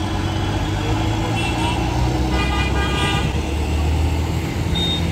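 Road traffic at a busy junction: a steady low rumble of engines from motorcycles, auto-rickshaws and a bus, with a vehicle horn honking for under a second about two and a half seconds in, and a shorter, fainter toot a little before it.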